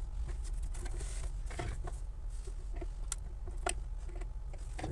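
A few faint, sharp clicks of a screwdriver and hands working at the plastic body of a Royal 202 typewriter, easing its tabs loose, over a steady low hum.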